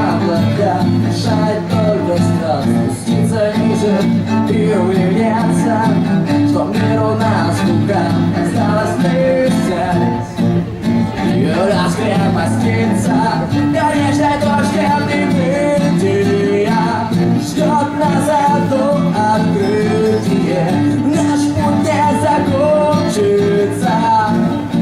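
Live indie-rock band playing a song, with guitars to the fore, during a passage with no lyrics.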